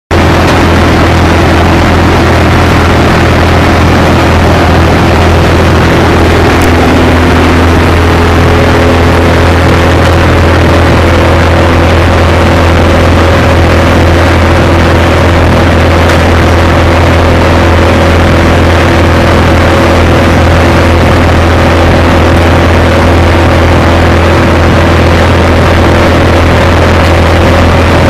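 Rayco 20-inch wood chipper running loud and steady at full speed while a small pine tree is fed through it, the engine holding its speed under the load.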